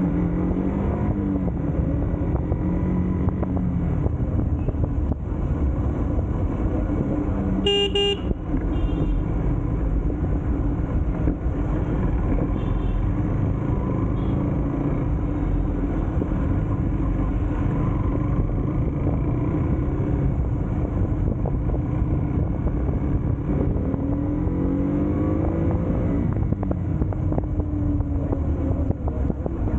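Motorcycle engine running on the move, its note rising and falling, under a steady low rumble. A vehicle horn honks once about eight seconds in, with a couple of faint short toots a few seconds later.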